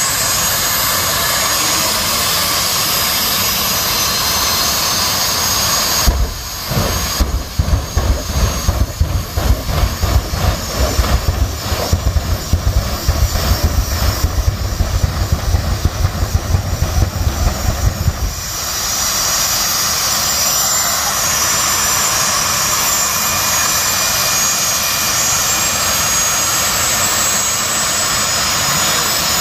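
Drag-racing jet cars' turbine engines running with a steady roar and high whine. About six seconds in, a rapid, uneven series of deep pulses sets in for about twelve seconds as the afterburners fire, then the steady roar returns.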